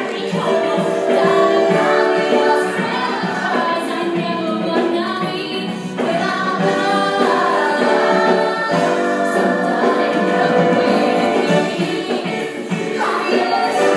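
Singers with band accompaniment performing a stage-musical song, the voices holding long sung notes.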